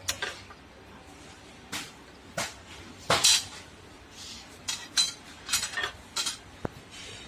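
Metal clanks and clinks from a hand-operated lever bending jig as flat steel strip is bent into a pipe clamp and the bent piece is worked out of the jig. A series of sharp separate knocks, the loudest about three seconds in, with a quicker run of clinks in the last couple of seconds.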